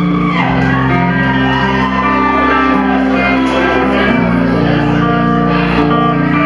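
Live band playing loudly in a hall: guitar and bass holding sustained chords of a song's intro, with voices shouting and singing over it.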